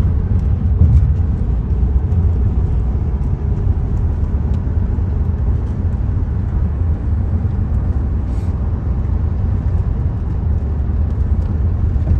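Steady low rumble of a Ford Flex driving across a bridge, heard inside the car's cabin: road and engine noise.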